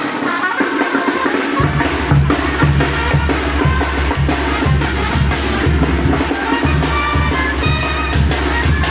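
Dance music with a steady drum-kit beat played over a mobile disco sound system; a heavy bass line comes in about a second and a half in.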